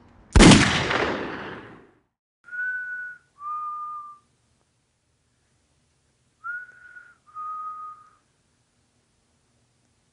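A single pistol shot, sharp and very loud, fading out over about a second and a half. Then a two-note whistle, a higher note then a lower one, is heard twice, each note held under a second.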